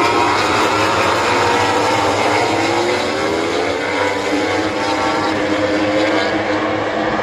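Several MotoGP bikes' engines racing through the corner, their overlapping pitches gliding up and down as the field passes.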